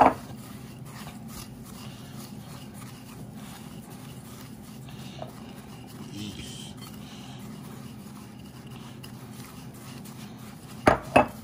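Silicone spatula stirring and scraping buttery cracker crumbs in a glass bowl, over a steady low hum. A sharp knock comes at the start and two more close together near the end.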